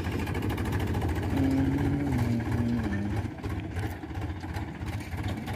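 Diesel tractor engine of a Powertrac Euro 50 running steadily while towing a thresher. A tone in its note steps down in pitch about halfway through, and the sound grows a little quieter as the tractor moves away.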